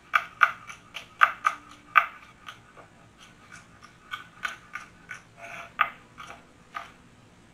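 Kitchen knife slicing a green bell pepper into thin julienne strips, each stroke a short, crisp knock. The knocks come quickly, about three a second, then turn slower and softer after about two seconds.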